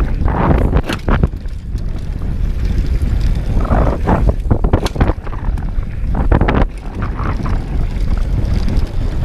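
Wind buffeting the action camera's microphone over the tyre noise of a Specialized Demo 8 downhill mountain bike rolling down a dirt trail, with sharp knocks and clatters from the bike over bumps, several bunched together about four to five seconds in and again at about six and a half seconds.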